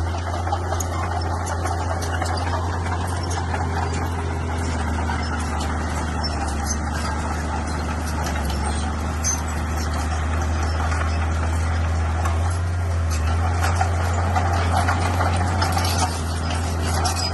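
Heavy diesel construction machine running steadily, its engine a constant low drone with small scattered clanks.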